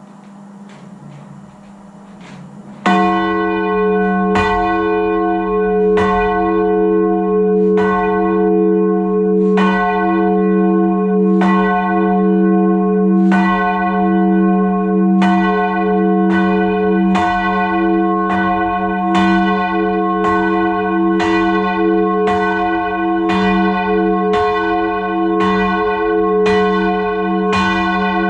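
Addlethorpe's ring of six church bells (tenor 10–2–12 cwt, in F) ringing. Strokes begin about three seconds in, at first about every second and a half, then come closer together, roughly every three-quarters of a second, over a steady ringing hum.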